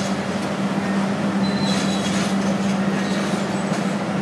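Demolition excavator running with a steady hum, with brief high metallic squeals as its hydraulic crusher jaws bite into the concrete and brick of the building.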